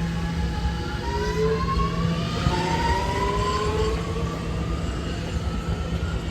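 Subway train's traction motors whining, with several tones rising in pitch together as the train accelerates, over a steady low hum.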